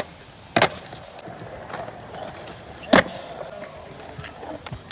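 Skateboard wheels rolling on smooth concrete, with two sharp clacks of the board striking the ground, about half a second in and again near three seconds, the second the louder.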